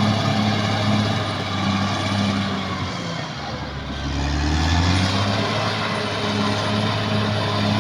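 Caterpillar D6R XL bulldozer's diesel engine running steadily under load. About three seconds in the engine speed drops and then climbs back, the engine lugging as the blade takes a heavy bite of earth.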